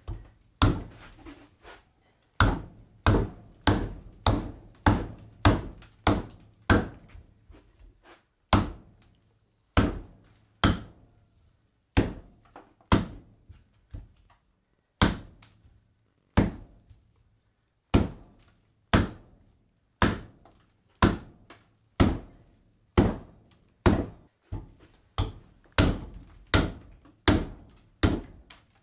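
Carving hatchet chopping into a green black walnut branch on a wooden chopping block: a long series of sharp thunks, roughly one to two a second. The back half of the limb is being hewn away to rough out a ladle handle.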